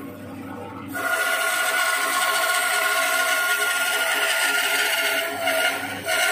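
Makita LB1200F band saw running and cutting through a wooden board: a steady whine over a rasping blade sound, with a brief quieter lull in the first second.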